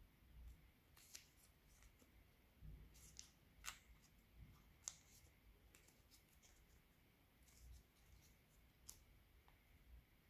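Very faint, sparse crinkles and clicks of origami paper being folded and pinched between fingers, with two sharper clicks near the middle.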